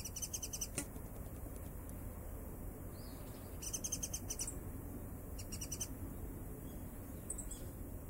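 Japanese white-eyes calling: four quick runs of thin, very high chirps over a steady low hiss.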